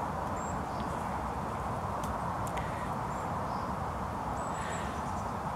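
Steady, even outdoor background noise with no single clear source, and a few faint, brief high chirps about half a second in and again near the end.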